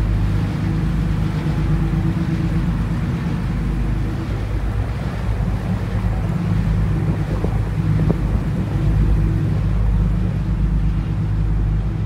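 Tender boat's engine running at a steady low drone as the boat motors along, with a hiss of wind and water over it.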